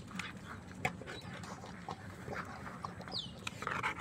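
Large black dog panting with its mouth open after a long drink of water, with scattered short clicks. A single short falling whistle sounds about three seconds in.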